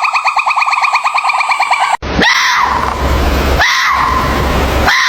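Two different animal sounds: a fast, even pulsing trill of about ten pulses a second, cut off abruptly about two seconds in, then loud harsh calls repeated roughly every second and a half, each jumping up in pitch and sliding back down.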